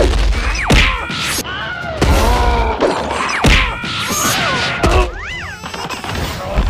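Cartoon fight sound effects: a run of whacks and crashes about a second apart, mixed with short character cries and a rising-then-falling whistle about five seconds in.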